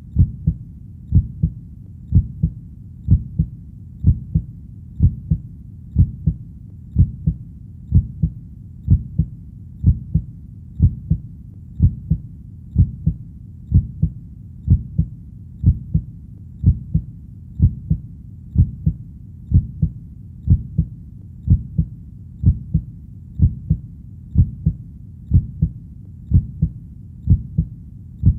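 Human heartbeat, a low double thump (lub-dub) repeating slow and even, about once a second.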